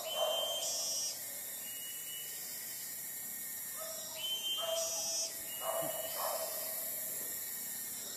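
Animal calls: the same short series of mid-pitched and higher notes repeats about every four seconds, over a steady high-pitched hiss.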